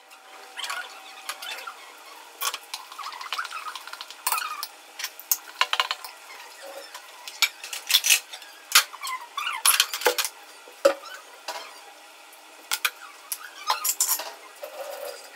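Steel kitchen utensils clattering: pots, pans and spoons handled and set down at a gas stove, in irregular sharp clinks and knocks.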